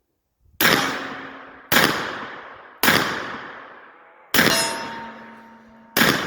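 Five gunshots from a revolver chambered for .45 Colt and .410, fired double action about a second apart. Each shot cracks sharply, then echoes away over about a second.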